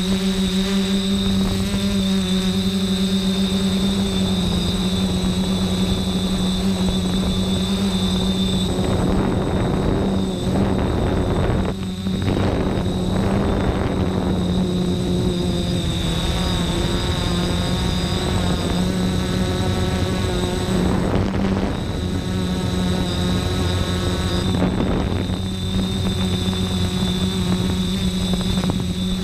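Electric multirotor (hexcopter) rotors running at a steady pitch, a low hum with a thin high whine over it. For much of the middle a rougher, wavering mechanical noise rises over the hum and fades again near the end.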